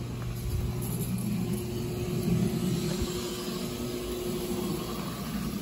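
Lawn sprinklers on a freshly tested irrigation zone spraying water with a steady hiss, over a steady low hum.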